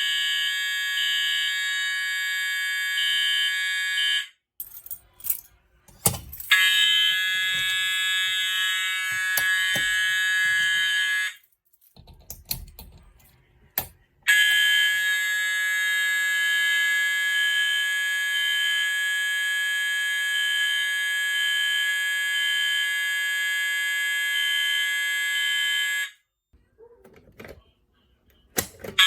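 Electronic fire alarm horn sounding a steady, continuous tone. It stops and resumes three times, with short pauses that hold only faint clicks and knocks.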